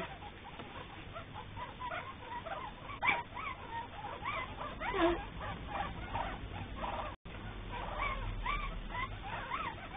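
A litter of young Cavalier King Charles Spaniel puppies squeaking and whimpering: many short, high squeals and whines, rising and falling in pitch, overlapping one another.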